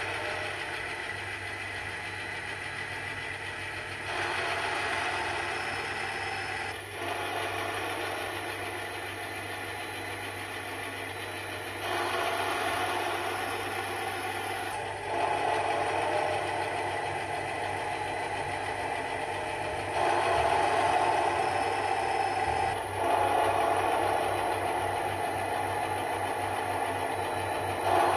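Recorded sound of an SNCF BB 66000 diesel locomotive engine played through a small SugarCube speaker in an HO model locomotive, with a steady low hum and engine clatter. The level steps between quieter and louder passages every few seconds as the engine sound sequences change.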